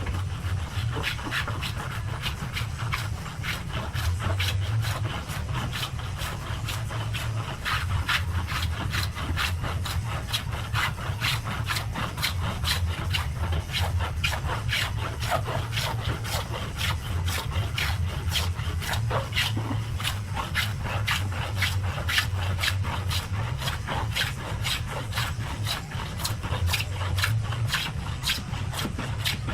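Hand scrub plane cutting a rough ash board: a steady run of quick rasping strokes of the iron across the wood, one after another without pause.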